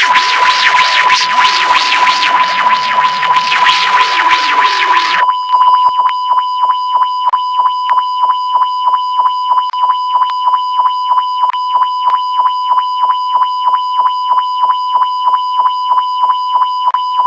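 Broadcast audio fault: a steady 1 kHz test tone over harsh crackling noise, which stops about five seconds in. The tone then carries on with a rapid, even pulsing and fainter high whistles above it.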